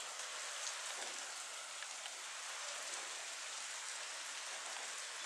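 Steady rain falling on wet pavement and puddles: an even hiss of drops with no single louder event.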